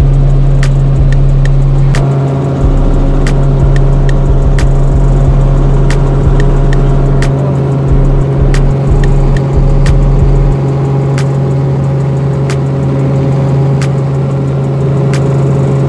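Cabin noise of a small helicopter in flight: a loud, steady low drone from the engine and rotor. Gusts of low rumble come and go until about ten seconds in, with scattered sharp clicks.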